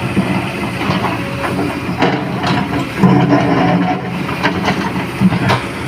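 Excavator's diesel engine running, with scattered knocks from the working machine; the engine note grows stronger about three seconds in and eases off near the end.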